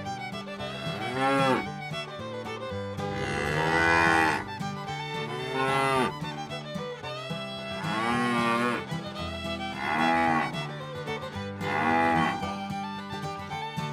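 Cows mooing, about six calls a couple of seconds apart, some short and some long and drawn out, over background music with steady low held notes.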